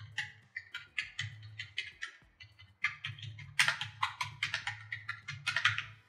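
Fast typing on a Cosmic Byte CB-GK-02 membrane gaming keyboard: a rapid patter of key clicks, with louder flurries of keystrokes about halfway through and near the end.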